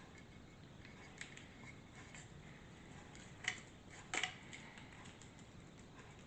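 Tape being picked and peeled off a bicycle frame: faint scrapes and light clicks, with two sharper clicks about three and a half and four seconds in.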